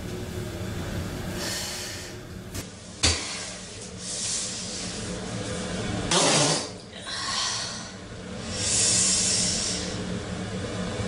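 A short, loud fart about six seconds in, its pitch dropping at the end, after a sharp click about three seconds in. Breathy hissing sounds come twice after it.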